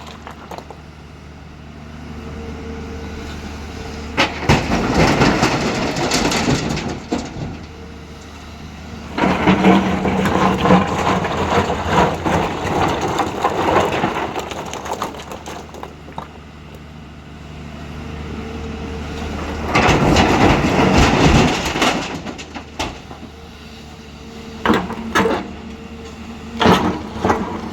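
Hyundai 215 excavator's diesel engine running steadily, working harder in three loud spells about 4, 9 and 20 seconds in, each with rough crashing noise. A few sharp knocks come near the end.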